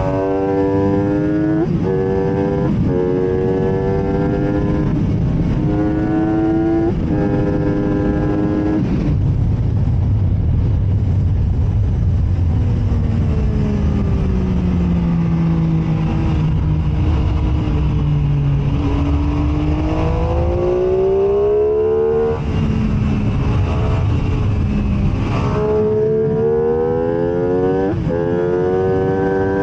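MV Agusta F3 three-cylinder sportbike engine at racing pace, climbing through the gears with quick upshifts that make the pitch drop sharply several times. Midway the engine note winds down slowly as the bike slows for a corner. It then rises again and shifts up twice more near the end, over a steady low rush of wind.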